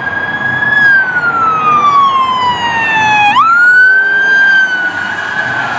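Police car siren wailing: a long, slow fall in pitch, then a quick rise about three and a half seconds in, holding high again.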